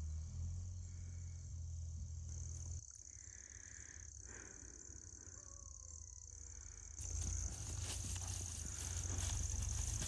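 Faint, steady high-pitched chirring of insects in the pasture, with a low rumble over the first few seconds; the sound grows louder and busier about seven seconds in.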